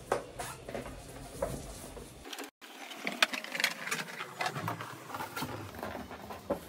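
Inflated latex balloons being handled and twisted together: a run of short, scattered rubbing and tapping noises, broken by a sudden cut to silence about two and a half seconds in.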